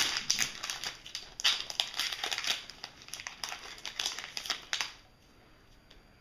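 Trading-card pack wrapper crinkling and crackling in the hands as the pack is opened and handled, stopping about five seconds in.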